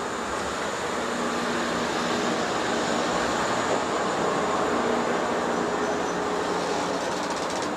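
Electric train moving along the platform: a steady rolling rumble with a faint motor hum, swelling slightly in the middle.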